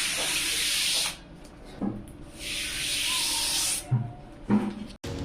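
Two long rubbing, hissing noises, each lasting about a second and a half, with a few light knocks in between: something being rubbed or slid while PC case parts are handled.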